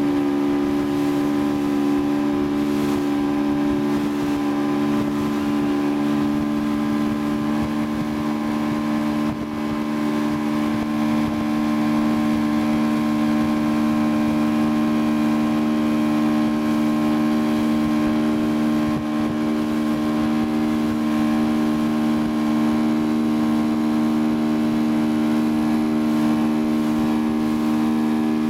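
Motorboat engine running at a steady speed while towing a tube, a constant drone that does not rise or fall, over a hiss of wind and rushing water.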